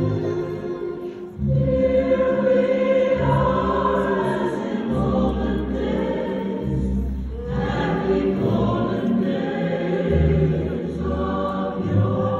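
Large choir singing in long held notes, with a short lull about a second in before the voices come back in full.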